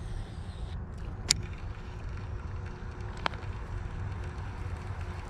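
Wind rumbling on the microphone, over the faint whir of a baitcasting reel being cranked in. Two sharp clicks, about a second in and about three seconds in.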